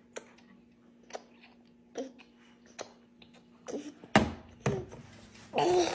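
A baby swallowing gulps of milk from a sippy cup, about one gulp a second, then two louder knocks and a short voiced 'ahh' from the baby near the end.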